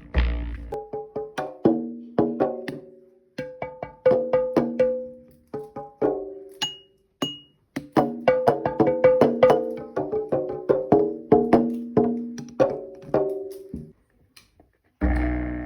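A homemade instrument made from recycled materials played as a quick, uneven run of pitched notes, each ringing briefly and fading. Two short high pings come about half a second apart midway, then a short pause and a low note begins near the end.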